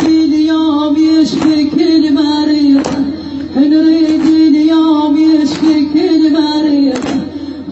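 A mullaya's voice singing a long, wavering, drawn-out lament line without clear words, over a sharp beat that falls about every second and a half.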